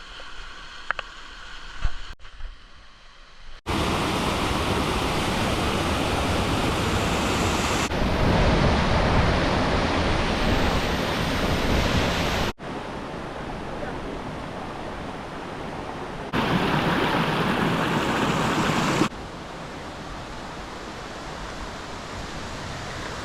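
Waterfall rushing: a steady noise of falling water, in several edited shots of differing loudness, with a sudden jump in level about four seconds in.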